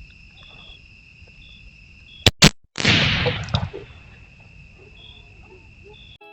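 Insects trilling steadily with short repeated chirps. About two and a half seconds in come two sharp cracks and then a loud noisy burst that dies away within a second.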